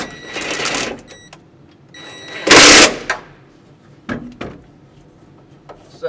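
Cordless power driver spinning a 10 mm socket on an extension to tighten the pedal bracket's bolts: a short run near the start, then a louder burst of about half a second about two and a half seconds in, followed by a few light clicks.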